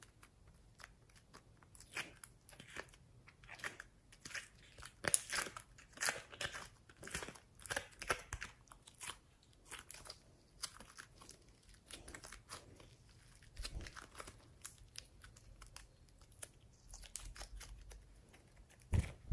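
Soft modelling clay being pressed and kneaded by hand, making irregular sticky crackles and clicks. Near the end there is one soft thump.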